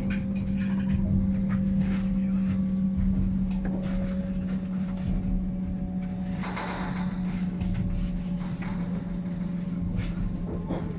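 Passenger train running slowly, heard from inside the coach: wheels rumbling on the track under a steady low hum. A brighter hiss joins about six and a half seconds in.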